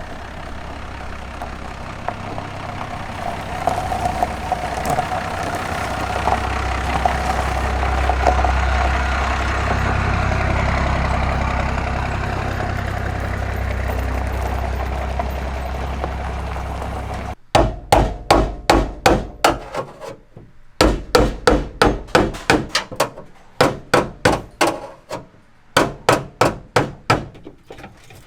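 Vehicle driving, with a steady engine hum and road noise. It cuts off suddenly and gives way to a fast series of sharp knocks, about two or three a second, with brief pauses.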